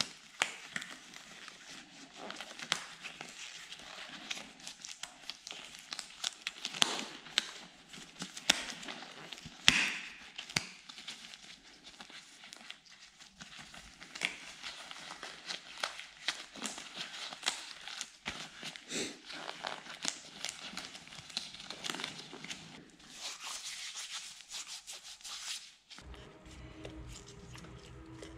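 Disposable rubber gloves being pulled on and stretched over the hands, rustling and crinkling, with sharp snaps of the rubber. The loudest snap comes about ten seconds in.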